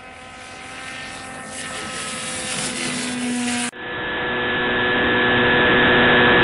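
Model aircraft's motor and propeller run up to takeoff power, a steady pitched drone growing louder over the first few seconds. A little over halfway through, the sound cuts to the model's onboard camera, where the propeller drone is much louder and close-up, rising briefly and then holding steady as it climbs.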